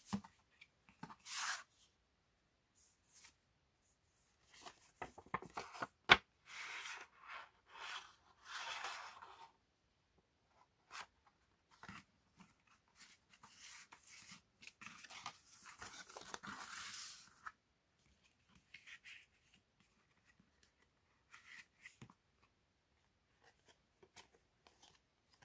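Paper and cardboard album packaging being handled: kraft-paper folder flaps opened, a CD drawn from its paper sleeve, and photocards handled, in scattered rustles and scrapes with pauses between. A sharp click about six seconds in is the loudest sound.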